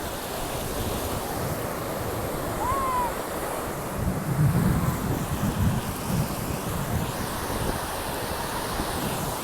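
Ocean surf washing steadily, with wind buffeting the microphone in low gusts that are strongest about four to six seconds in.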